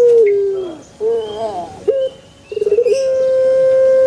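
Puter pelung dove calling: the end of a long, held cooing note that steps down and falls away, then a few short wavering notes, then a stuttered start into another long, steady note about two and a half seconds in.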